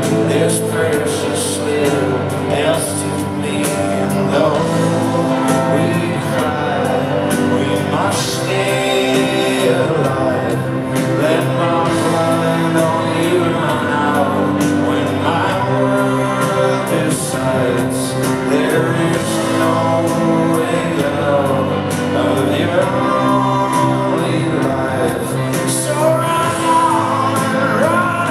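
Live band playing electric guitars under held, sung vocal lines, with no break in the music.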